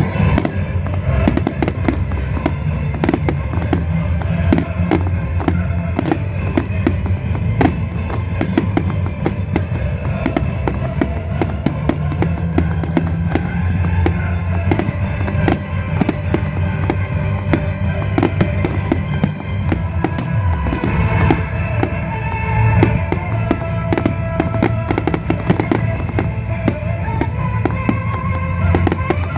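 Aerial fireworks bursting in a dense, continuous string of sharp bangs and crackles, with music playing underneath.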